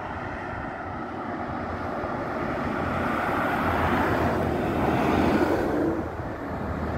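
Highway traffic passing below: tyre and engine noise of cars and a box truck, growing steadily louder and loudest about five seconds in as the truck comes through, then easing off.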